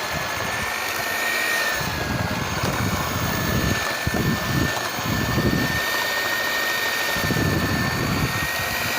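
Electric hand beater running with a steady high whine, beating a thick mash of boiled wheat, barley and Bengal gram, with heavier low churning in several stretches as the beaters work through the mixture.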